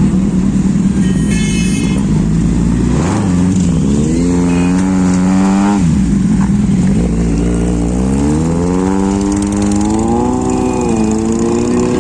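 Kawasaki H2 motorcycle's supercharged inline-four running loud through its exhaust. It holds steady, then climbs in revs, drops sharply, and climbs again. A brief high chirp sounds about a second and a half in.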